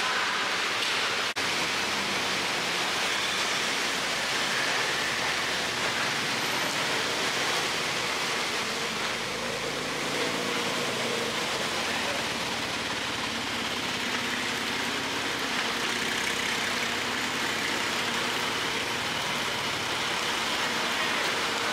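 Steady hiss of rain, with a faint low vehicle hum beneath.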